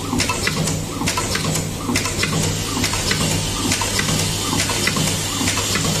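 Automatic lobster-claw clasp assembly machine running: a steady low hum, typical of its vibratory bowl feeder, under a quick, irregular clatter of small metal clicks and short bursts of compressed-air hiss from the pneumatic stations.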